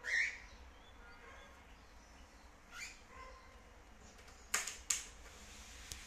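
Cockatiel giving one short, loud chirp that sweeps down in pitch right at the start, a shorter chirp nearly three seconds in, and faint soft chirps between. About four and a half seconds in come two sharp clicks about half a second apart as the bird scuffles on the cabinet top.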